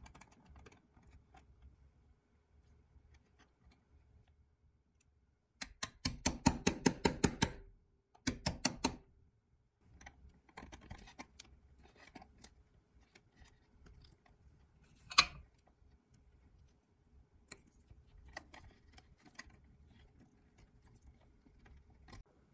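Light, scattered clicks and taps. About a quarter of the way in comes a run of rapid, even clicks, roughly ten a second for about two seconds, then a shorter run just after. One sharp click is the loudest sound, about two-thirds of the way through.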